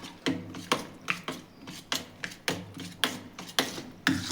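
A utensil stirring a thin gram-flour and buttermilk batter in a bowl, scraping and clicking against the bowl about twice a second as the lumps are beaten out.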